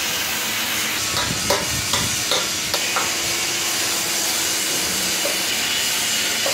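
A run of about six sharp hammer knocks on steel, ringing briefly, from about one to three seconds in, as bearings are fitted into the steel frame of a pipe-bending machine. A steady hiss of workshop noise runs under the knocks.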